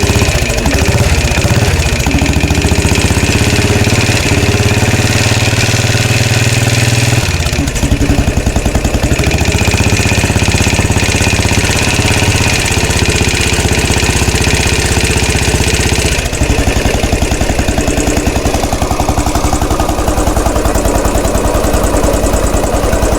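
Royal Enfield Classic 500 single-cylinder engine idling steadily just after a rebuild, at about 900 to 960 rpm. Its note changes suddenly about seven seconds in and again about sixteen seconds in.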